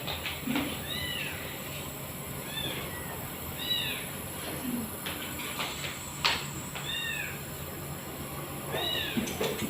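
Short, high-pitched cat meows, about five of them, each rising and then falling in pitch, over the steady hum of a compressor nebulizer running. A single sharp knock about six seconds in.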